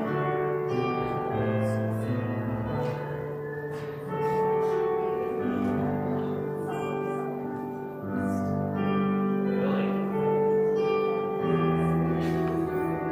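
Slow instrumental church music: sustained chords held for a second or two each, moving from one to the next.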